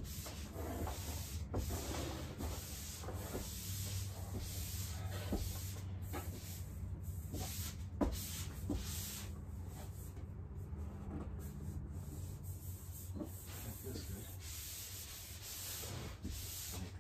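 Hands rubbing and smoothing peel-and-stick vinyl wallpaper onto a wall, with the paper backing rustling as it is peeled away. There is a sharp tap about halfway through, over a steady low hum.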